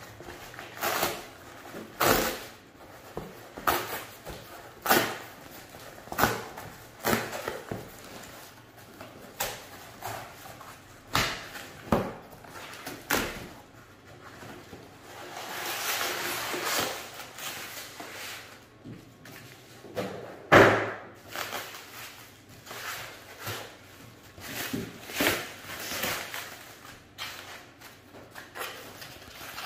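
Cardboard shipping box being opened by hand: a string of short rips, scrapes and knocks as packing tape is slit and the cardboard is torn away, with a longer tearing stretch about halfway through and the loudest rip a few seconds later. Near the end come the handling sounds of plastic wrap and foam packing.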